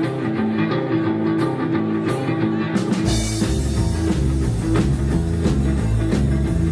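Rock and roll band music: guitar alone at first, then bass and drums come in about three seconds in, launching into the next song.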